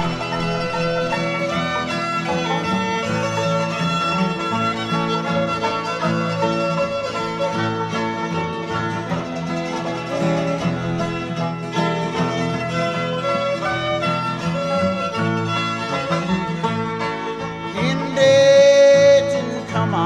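Bluegrass band playing without vocals, the fiddle to the fore over banjo, guitar and upright bass. A louder, steady held high note comes near the end.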